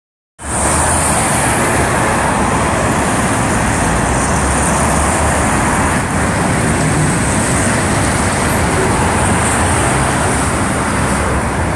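Steady noise of busy multi-lane city road traffic, with a constant high hiss above it.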